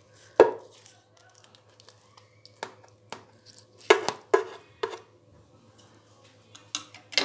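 A knife cutting through a tray of browned baked phyllo pastry, the blade knocking against the metal baking tray in about eight sharp, irregular taps, the loudest just under half a second in.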